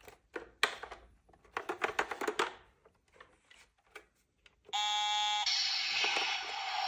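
Small toy cars clicking and rattling as they are handled, then about two-thirds of the way through a toy's electronic sound module starts a loud, steady alarm-like tone that turns harsher after about a second and keeps going.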